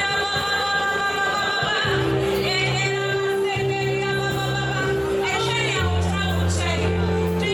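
Worship music with singing over instrumental accompaniment, its low held notes changing every second or two.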